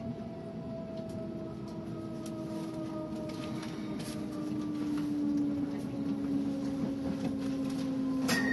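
Electric multiple-unit train at a platform: a rumble with a motor whine that slowly falls in pitch. Near the end a sudden click, then a steady high tone.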